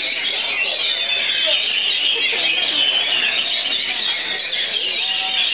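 Many oriental magpie-robins (kacer) singing at once, a dense chorus of overlapping high whistles and chirps.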